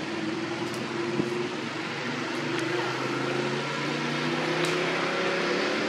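A motor running with a steady low hum over a hiss; its pitch rises slowly in the second half.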